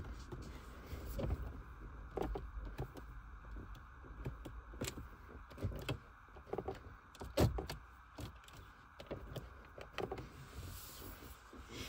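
Irregular clicks and knocks of hand work on a car door's window switch and trim.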